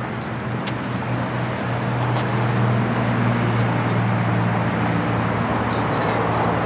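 Steady engine hum and road noise of a motor vehicle, growing a little louder about two seconds in.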